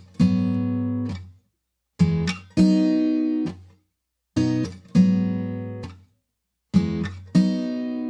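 Background music: a guitar strumming chords in pairs, a short chord then a longer ringing one, with a brief silence between each pair.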